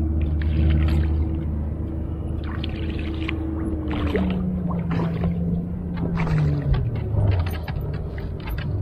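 A boat motor running with a steady hum; about four seconds in its pitch falls away over a few seconds. Over it, water splashes and sloshes as a hooked king salmon thrashes at the surface by the landing net.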